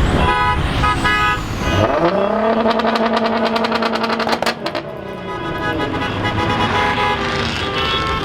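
A car engine revs up and holds at high revs for a few seconds, with crackles through it, then drops off. There are short horn toots among other running cars.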